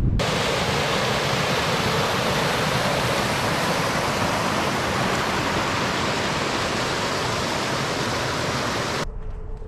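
Falling water rushing steadily, a strong even hiss that cuts in suddenly at the start and stops abruptly near the end.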